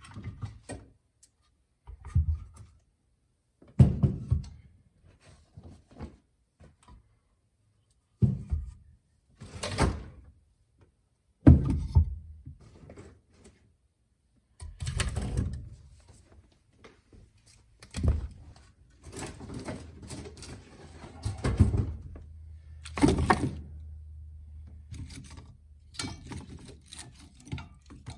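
Pieces of firewood being set and shifted in a metal fireplace grate: a string of separate knocks and thunks a second or more apart, some with a scraping rustle. A faint steady low hum comes in about two-thirds of the way through.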